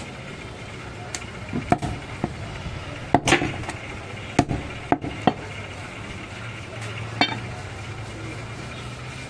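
A heavy butcher's cleaver chopping goat meat on a wooden chopping block: a series of sharp, irregular knocks, the loudest about three seconds in, with one more near seven seconds, over a steady low background hum.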